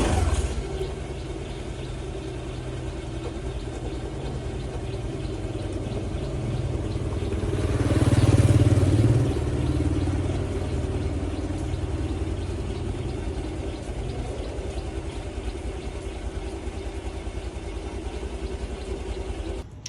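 An engine running steadily with a low, even pulse, swelling louder about eight seconds in and stopping abruptly near the end.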